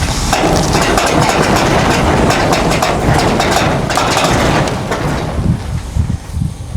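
A truck engine running along with a loud scraping and rattling, which eases off about five seconds in.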